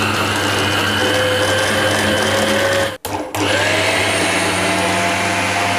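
Electric food chopper's motor running steadily as it chops green chillies, ginger, garlic, coriander and spices into a coarse green masala. About three seconds in it stops for a moment, then starts again and speeds back up.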